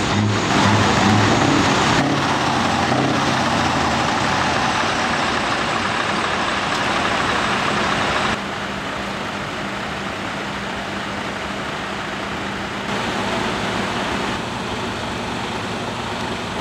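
Heavy trucks' diesel engines idling, a steady rumble with hiss. The sound drops and changes abruptly about eight seconds in and again near the end, as the scene switches between trucks.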